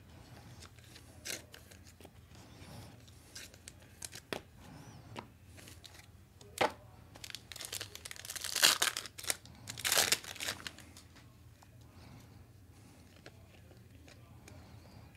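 A basketball trading-card pack's wrapper being torn open and crinkled, with the loudest rips and crackles about eight and ten seconds in. Light rustling and clicks of cards being handled come before and after.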